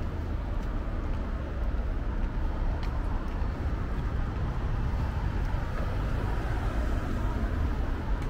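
Steady rumble of city traffic, with a few faint clicks.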